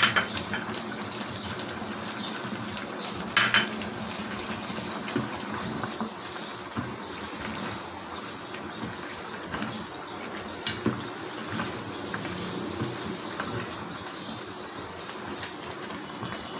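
Spatula stirring chicken pieces and tomatoes in a kadhai, scraping and knocking against the pan over a steady simmer, with a few sharper knocks, the loudest about three and a half seconds in.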